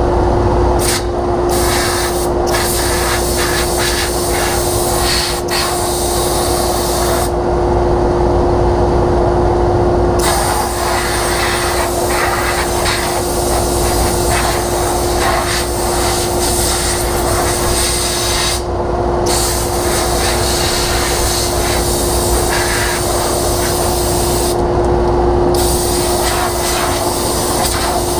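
Motor-driven dust-cleaning wand running steadily, with a constant hum and a loud rush of air as dust is cleared out of a table saw's cabinet. The hiss drops away briefly a few times, and there are a few knocks near the start as the wand is worked around inside.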